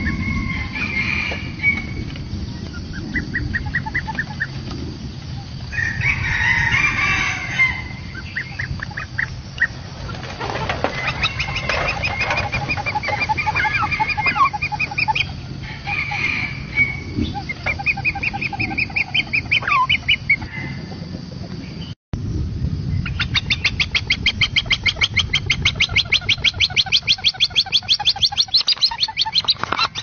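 Oriental pied hornbills calling in repeated bursts of rapid cackling notes, ending in a long, fast, even run of cackles. A steady low hum runs underneath, and the sound drops out briefly about two-thirds of the way through.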